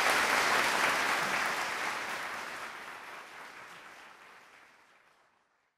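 Audience applauding, the applause fading away to silence over about five seconds.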